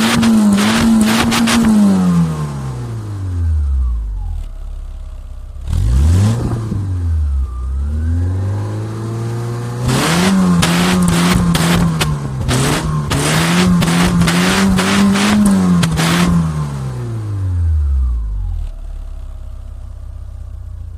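A 1994 Lancia Delta II 1.8 i.e. 8-valve four-cylinder engine, warmed up, revved through a decat aftermarket exhaust with no catalytic converter. The revs are held high and wavering, drop to idle, get a short blip at about six seconds, then climb and are held high again for about six seconds before falling back to idle near the end.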